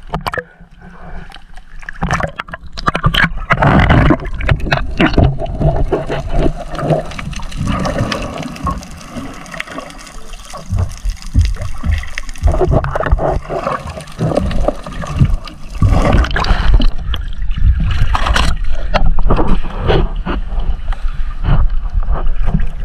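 Sea water splashing and gurgling as a wet gill net is hauled over the side of a small outrigger boat, with many irregular splashes and knocks. Partway through, the camera dips underwater into the gurgling water.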